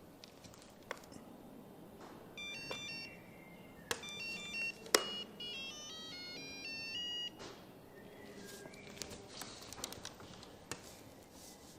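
Short runs of electronic beep tones stepping up and down in pitch like a ringtone tune, three sequences in all, the last and longest ending about seven seconds in, with a few sharp clicks in between.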